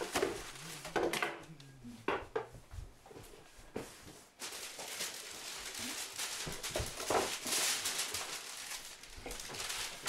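Scattered knocks and clatter of objects being set down on a table, then a steady rustling of wrapping paper being handled, from about four seconds in.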